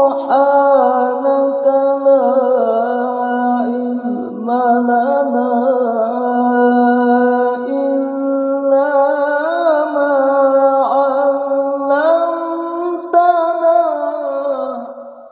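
Male qari reciting the Quran in melodic tilawah style: one long melismatic phrase, the pitch winding up and down in ornamented runs over held notes, fading out near the end.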